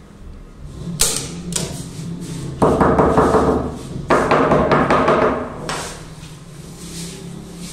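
Hammer striking the wooden cushion rail of a snooker table, tapping down the new cloth and its staples: several separate blows a second or so apart, each ringing briefly, fading off near the end.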